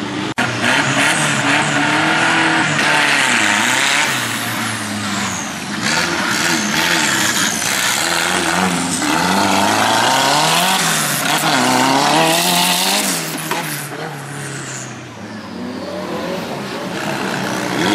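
Off-road race buggy engine revving hard, its pitch rising and falling over and over as the throttle is worked on and off.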